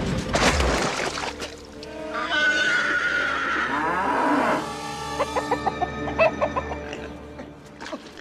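A cow mooing over background music, with the tail of a crash at the very start.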